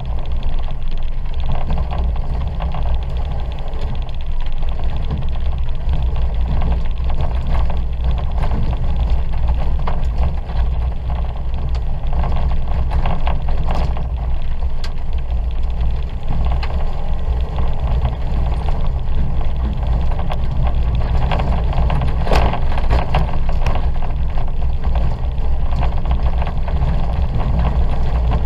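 Ford Fiesta 1.2 engine running hard under racing load, heard from inside the cabin with a heavy low rumble, with a few clattering knocks from the car around the middle and about three-quarters of the way through.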